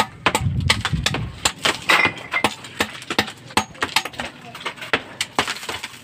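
Irregular sharp knocks, cracks and clinks of broken concrete and hollow-block rubble being struck and shifted during masonry demolition, with a duller thud in the first second.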